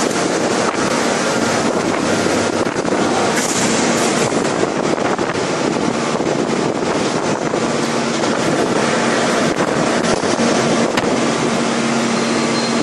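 5000-ton hydraulic forging press running while it forges a red-hot steel workpiece: loud, steady machine noise with a faint low hum that becomes plainer in the second half, and no separate blows.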